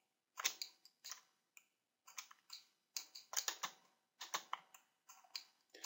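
Faint, irregular clicking of a computer mouse and keyboard, in small clusters a fraction of a second apart.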